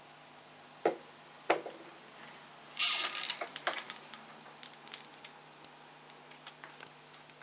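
Handling noise from a Singer 191D-20 industrial sewing machine as its head is tilted back down onto the table: two knocks, a short scraping rustle about three seconds in, then scattered light clicks, over a faint steady hum.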